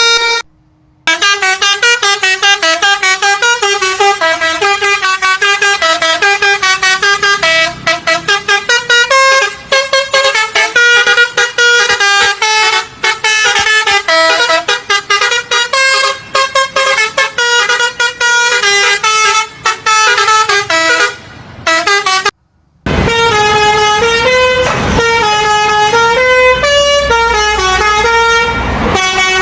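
Bus 'telolet' basuri multi-tone horn playing a fast melody of stepped notes. It breaks off briefly about half a second in and again about 22 seconds in; after the second break a low rumble runs beneath the horn notes.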